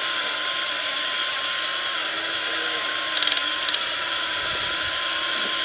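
Small electric drive motors and gearboxes of a radio-controlled excavator whining steadily, with a slight waver in pitch. A quick run of clicks comes a little past halfway, then a couple more shortly after.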